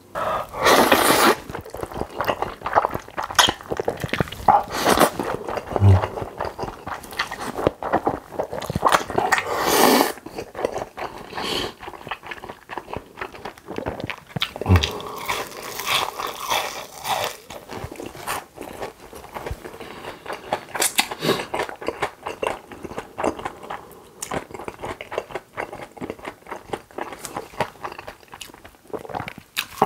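Crunching bites and chewing of deep-fried battered shrimp, with louder crunches in the first ten seconds and softer continuous chewing later.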